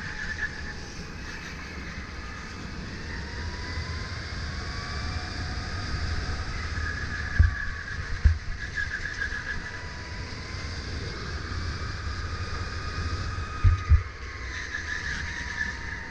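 Sodi RSX2 electric kart's motor whining, its pitch rising and falling with speed, over a steady rumble of tyres and wind. Two pairs of low thumps come about halfway through and again about two seconds before the end.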